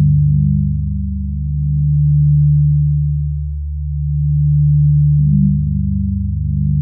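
Electronic music made of low, pure synthesizer tones that swell and fade slowly, about every two and a half seconds. A new note comes in with a short attack about five seconds in.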